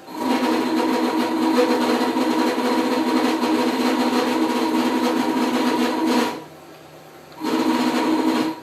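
Stepper motors of a Chinese 6040 CNC router driving the axes: a steady whine with several pitches that starts abruptly, runs about six seconds and cuts off, then a second, shorter move near the end. The machine has a fault in its X and Y axis movement.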